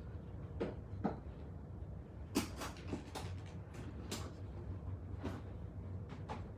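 A scattered series of light knocks and clicks, about ten, at irregular intervals over a low steady hum.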